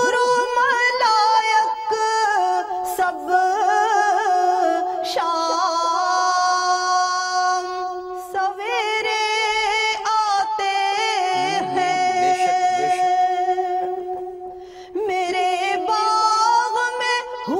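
A woman singing a naat (Urdu devotional poem in praise of the Prophet) in long held notes with ornamented turns, broken by a short pause about 15 seconds in.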